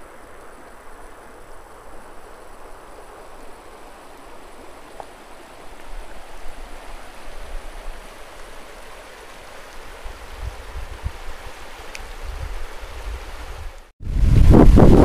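River water flowing steadily past snowy banks, a smooth even rush, with low wind rumble on the microphone growing in the second half. Near the end the sound cuts out for a moment, then loud gusts of wind buffet the microphone.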